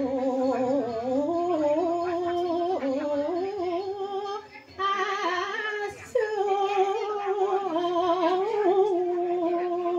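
A solo voice singing a slow melody with long held, wavering notes. It breaks off briefly twice, about four and a half seconds and six seconds in.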